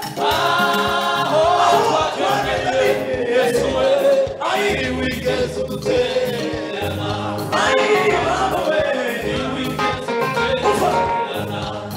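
Gospel choir singing together with a lead singer on a microphone, over instrumental backing with a steady beat.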